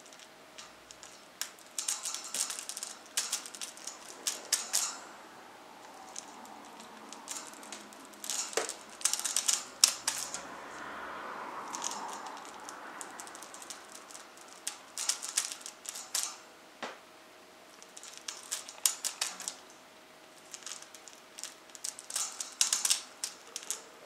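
Amazon parrot working a hanging metal chain with its beak: runs of rapid clinking and clicking of the chain links, each lasting a second or few, with short pauses between them.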